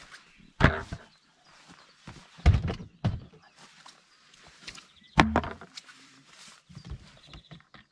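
Handling noise as gear is moved about in and around an inflatable boat: four louder dull thumps and knocks and a few fainter ones, with rustling in between.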